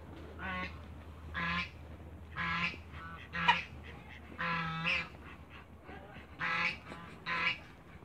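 Domestic geese honking, about seven loud calls spaced roughly a second apart, one near the middle held longer than the rest.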